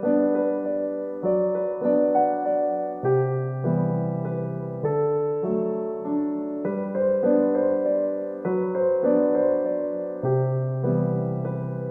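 Background music: soft electric piano playing a gentle, slow melody with chords, notes struck about once a second and left to ring.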